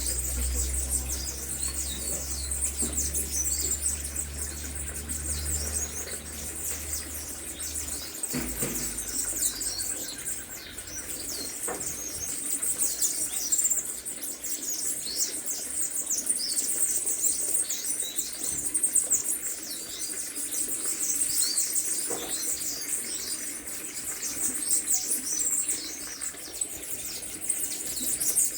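Dense chorus of many birds calling at once, with rapid, overlapping high-pitched chirps and twitters throughout. A low rumble sits underneath for the first eight seconds or so.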